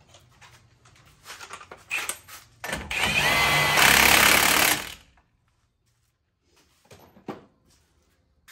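Cordless impact wrench running the 21 mm nut onto the tie rod end stud in one burst of about two seconds, after a few light clicks and knocks of the nut being started by hand.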